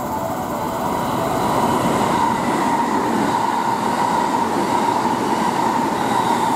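JR West electric commuter train running along the station platform: a steady rolling rumble that grows louder over the first couple of seconds as it draws near, with a steady high whine through it.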